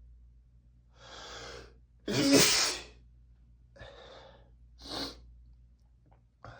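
A man sneezes once, sharp and loud, about two seconds in, after a drawn-in breath, then breathes out heavily and gives a short sharp breath near the middle. The sneezing is set off by an allergy to book dust.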